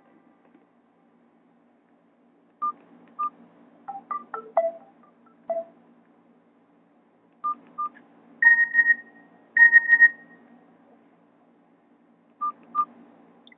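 Nokia E65 ringtone played on a Nokia 216's loudspeaker: a simple electronic tone pattern of short beeps at changing pitches, with two longer high tones in the middle. It starts after about two and a half seconds of quiet.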